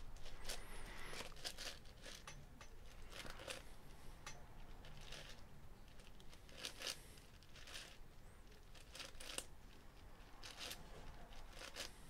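Plastic slices of a Meilong 10x10 cube being turned by hand: a faint, irregular run of clicks and scraping slides as the layers are moved through the OLL parity algorithm.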